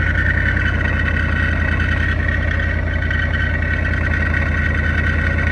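Supercharged Ford Coyote 5.0 V8 idling steadily, with a high-pitched whine over the engine note. The owner says it does not sound normal and puts it down to a failed Whipple supercharger bearing.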